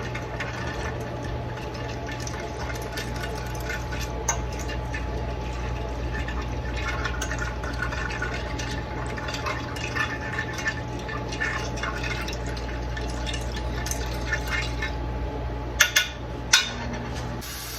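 A fork stirring a broth-based seasoning in a baking pan: light scraping, clinking and liquid swishing over a steady low hum, with two sharp taps near the end.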